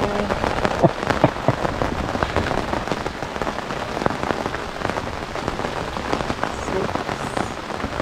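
Rain falling steadily, a dense run of small drop impacts, with a few louder sharp taps about a second in.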